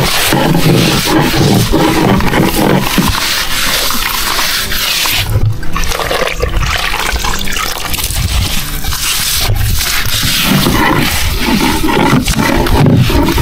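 A metal blade scraping thick algae off the underside of a painted boat hull: a loud, rough, irregular scraping.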